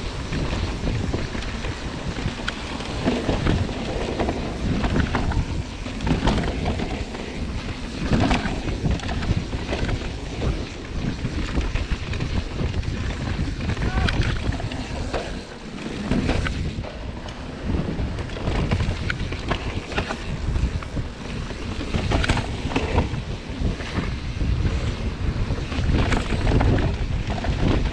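Mountain bike descending a dirt singletrack: wind buffeting the microphone with a heavy rumble, tyres rolling over dirt and rocks, and the bike clattering over bumps. The noise eases briefly about halfway through.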